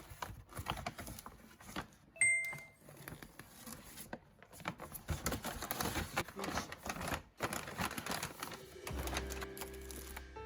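Plastic cookie bags crinkling and rustling, with light clicks and taps as they are handled and packed up. A short bell-like chime sounds about two seconds in, and background music comes in near the end.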